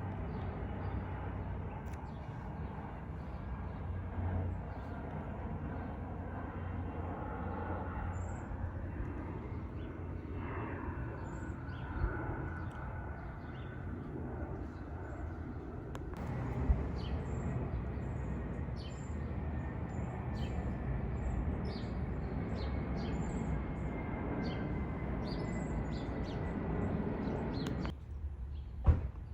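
A steady low mechanical rumble, like an engine running, with small birds chirping repeatedly from about halfway through. Near the end the rumble drops off suddenly.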